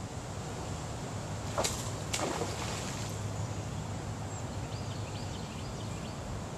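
A spinning rod swished through a cast, giving two quick whooshes about half a second apart as the crankbait and line fly out, over a steady low outdoor hum.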